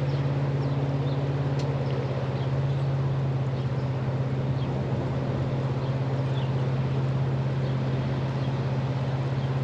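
Floodwater rushing hard through a canal and against a bridge, a steady noisy wash, with a steady low hum running underneath.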